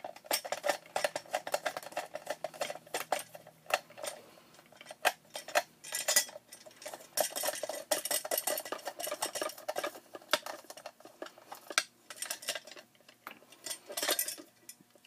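Screwdriver turning screws out of a plastic housing: a long run of small clicks and short scrapes. Near the end, loosened plastic panel parts knock and rattle as they are handled.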